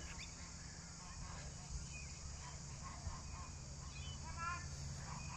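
Faint outdoor background with a brief honking bird call about four seconds in.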